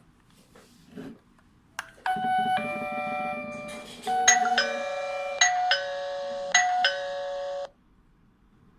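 A few light clicks, then an electronic video-doorbell chime playing a short multi-note tune for about six seconds. The tune has a run of notes and then a repeated chiming figure, and it cuts off abruptly.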